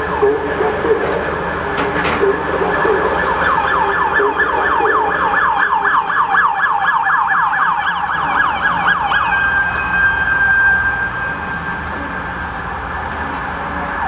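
Electronic warning siren sounding in a fast warble of about five falling sweeps a second, which gives way after about nine seconds to a steadier wail.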